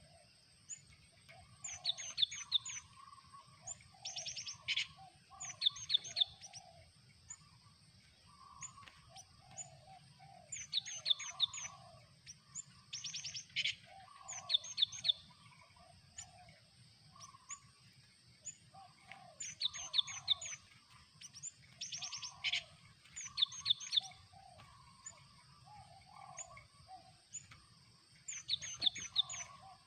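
Cinereous tit (gelatik batu) calling: bright high chirps and harsh rattling runs of notes in short clusters, the same sequence coming round about every nine seconds.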